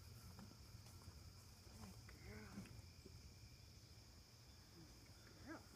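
Near silence: a faint, steady trill of crickets over a low rumble.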